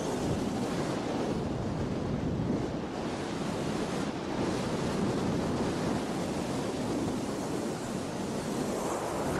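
Wind rushing over the microphone mixed with skis sliding and scraping over packed snow while skiing downhill: an even, continuous rush with no break.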